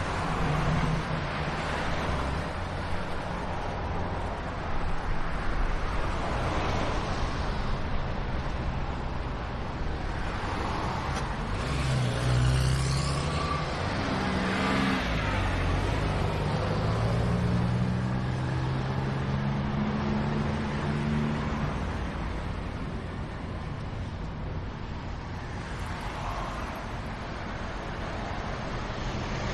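Truck engine running and tyre and road noise, heard from inside the cab while driving on a highway. The engine's pitch shifts up and down about halfway through as it changes speed.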